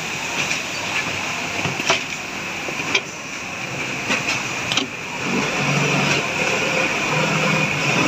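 Automatic pocket-and-Velcro sewing machine running with a steady mechanical noise, broken by a few sharp clicks in the first half. Indistinct voices join in the background from about five seconds in.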